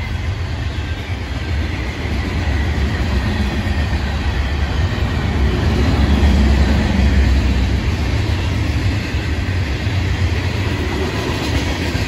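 Florida East Coast Railway freight cars, covered hoppers and gondolas, rolling past on the rails with a steady, heavy low rumble that grows loudest about halfway through.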